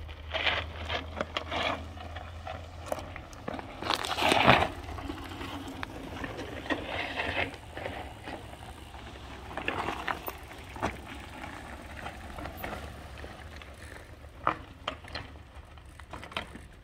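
Mountain bike tyres crunching and rattling over loose, rocky ground, with scattered clicks and scrapes and a louder rattle about four seconds in.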